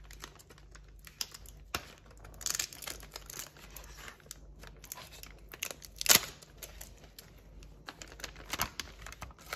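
Foil wrappers of Pokémon booster packs crinkling and rustling as the packs are picked up and handled, with one sharper crackle about six seconds in.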